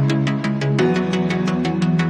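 Instrumental background music: sustained chords under a quick, even pulse of short notes, with the chord changing about a second in.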